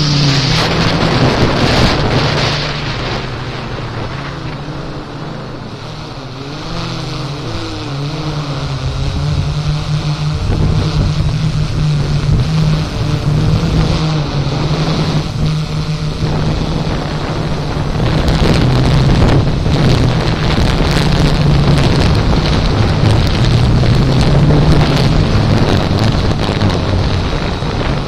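Quadcopter drone's motors and propellers humming close to the microphone, their pitch wavering up and down, with strong wind buffeting the microphone. It dips somewhat quieter in the first third and grows louder after about eighteen seconds.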